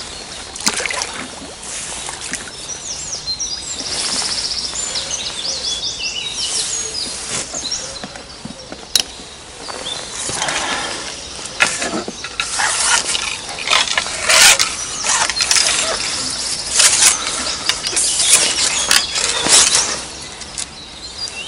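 Songbirds chirping in the background, with loud rustling and scraping handling noises close to the microphone that come and go, mostly in the second half, and a few sharp clicks.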